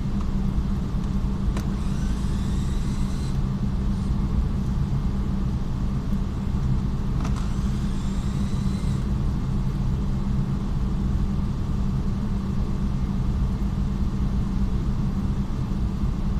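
Steady low workshop rumble. Twice over it comes a click and a short rising whine: a power screwdriver backing out the Torx T20 screws at the bottom of a Renault Megane 3 door trim panel, its motor speeding up as each screw comes free.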